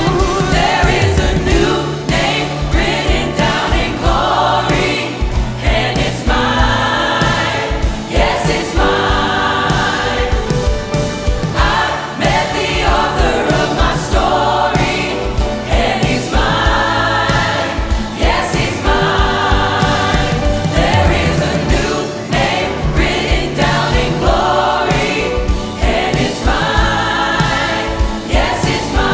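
Mixed vocal ensemble of men and women singing a contemporary Christian worship song in harmony, over accompaniment with a steady beat.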